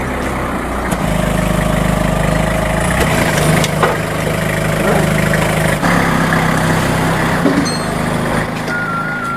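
An engine running steadily at a low, even pitch. Near the end a few short electronic beeps step down in pitch.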